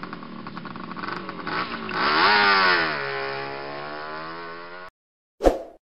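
Motorcycle engine running, with one throttle blip about two seconds in that rises and falls back to a steady idle. It cuts off abruptly, followed by a short thump near the end.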